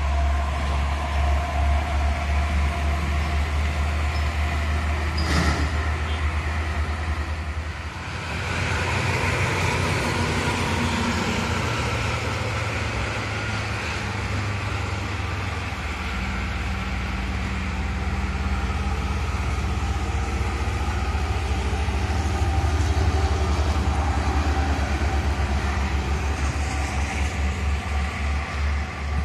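Highway traffic noise from trucks and cars passing on a toll road: a steady low rumble of engines and tyres. There is a brief knock about five and a half seconds in, and the rumble shifts about 8 and 16 seconds in.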